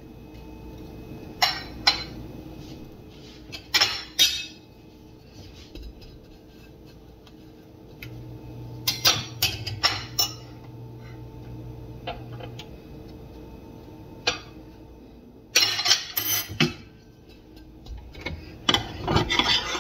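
Metal spatula and utensils clinking and scraping against a frying pan and plate, in scattered clusters of sharp clinks over a faint steady hum.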